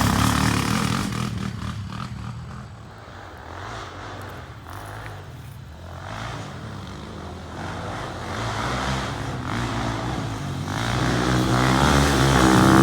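Off-road ATV and dirt bike engines on a dirt track, fading away into the distance and then growing louder again as the machines come back around, with a pitched engine tone rising near the end.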